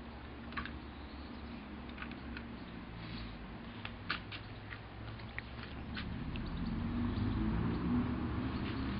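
Scattered light clicks and taps of a small plastic scale model being handled on a wooden slat table, its small parts knocking and a loose piece set down. A low rumble swells in the background over the last few seconds.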